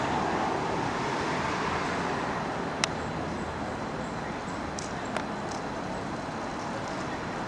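Steady street traffic noise, with two short sharp clicks, one about three seconds in and a fainter one about five seconds in.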